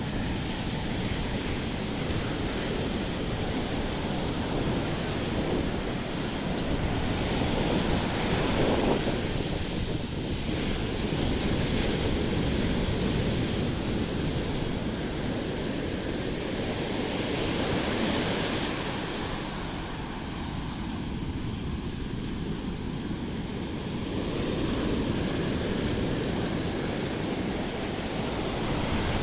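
Sea surf washing onto a beach, a steady rush of waves that swells and eases every several seconds, with wind on the microphone.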